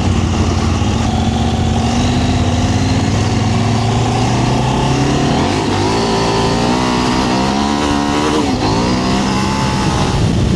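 KTM 790 Adventure R's parallel-twin engine pulling hard from a standing start on loose gravel. The revs climb in rising sweeps, with a gear change about eight and a half seconds in, then climb again.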